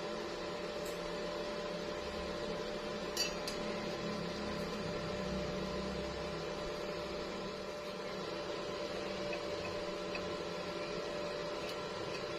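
Steady electrical machine hum, with a couple of short metallic clicks about three seconds in.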